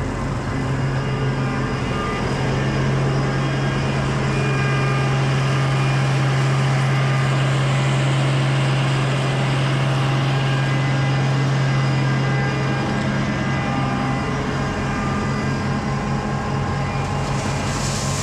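Engine of a large piece of farm machinery running steadily at constant speed, a little louder through the middle.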